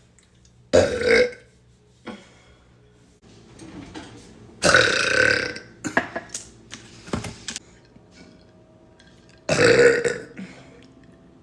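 A young woman burping loudly three times, each burp under a second long, about four to five seconds apart, with a few short, sharp sounds after the second.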